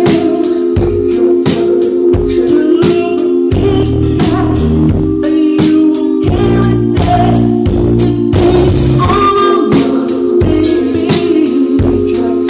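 Live indie rock band playing: a man singing over a steady drum-kit beat, electric guitar and a held keyboard chord, with deeper bass notes coming in around the middle.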